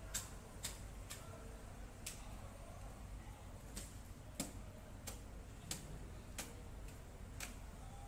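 About a dozen sharp, irregularly spaced clicks or taps over a steady low background rumble.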